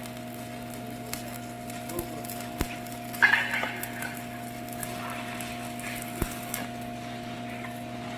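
Steady electrical hum of an arc welding machine, with scattered sharp clicks and a short crackling hiss about three seconds in.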